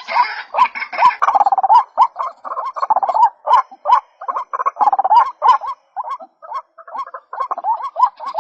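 White-breasted waterhen calling: a fast run of short repeated notes, about two or three a second, many with a quick upward hook in pitch, with a brief lull about six seconds in.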